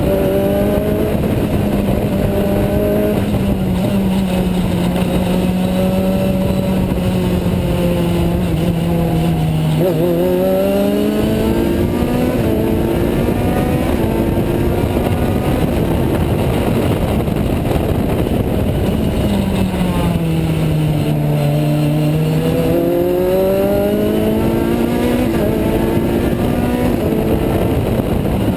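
Juno SSE race car's Honda Type R engine heard from the cockpit under racing load, its note held high, falling away and climbing back twice, about ten seconds in and again around twenty seconds in, over steady wind noise.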